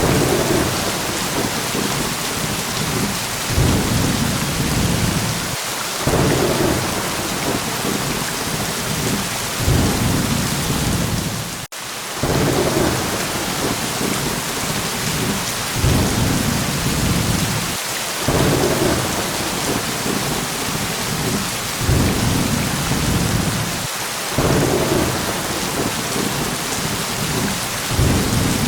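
Steady heavy rain with low thunder rumbles swelling and fading at regular intervals, about every six seconds. A momentary dropout breaks the sound near the middle.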